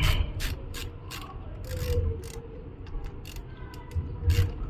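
Ratchet wrench clicking in a quick, even series as it is swung back and forth on a bolt of a motorcycle's front brake caliper, the clicks spacing out near the end.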